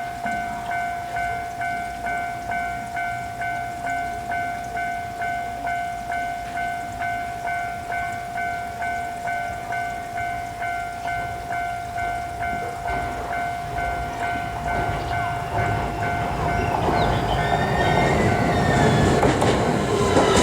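Japanese railway level-crossing warning bell ringing its steady 'kan-kan' alarm, about two strokes a second. From roughly two-thirds of the way in, an approaching train's running noise and rail rumble grow louder until the train drowns out the bell near the end.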